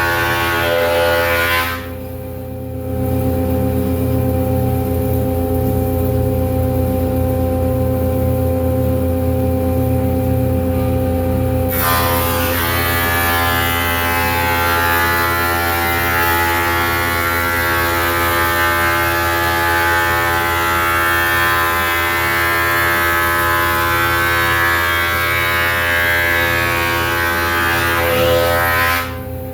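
Grizzly G0453 15-inch floor-model thickness planer running with a steady motor hum. From about twelve seconds in, a board feeds through and the cutterhead takes a light pass off the rough-sawn surface, adding a loud hiss that lasts until just before the end.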